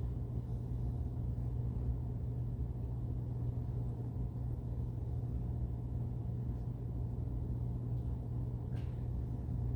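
Steady low hum with a rumbling background noise, with no distinct events in it.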